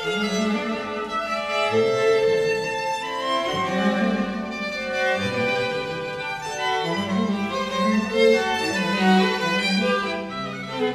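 Background music played on bowed strings, with long held notes that change every second or so.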